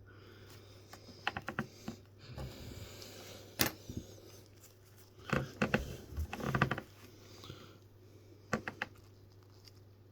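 Light clicks and taps from small watch parts and tools being handled, coming in a few short clusters, over a steady low hum.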